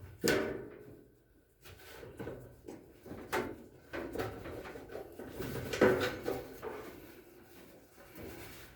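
A few sharp knocks with scraping and rattling between them, the loudest knock near six seconds in: hard objects being handled and set down.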